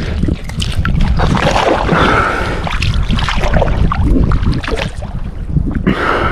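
Strong wind buffeting the microphone, a heavy, uneven low rumble.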